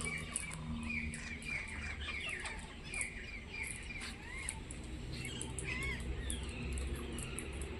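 Pet parrot chirping: a run of short, arched, repeated chirps.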